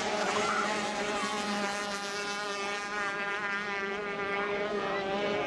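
Racing hydroplane's engine running flat out across the lake: a steady, slightly wavering high-pitched drone with no breaks.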